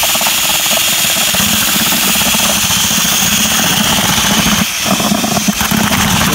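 Handheld electric drill with a paddle mixer running steadily, churning polymer-modified repair mortar (SikaTop 123 Plus) in a plastic bucket to bring it to a workable consistency. The motor dips briefly about three-quarters of the way through.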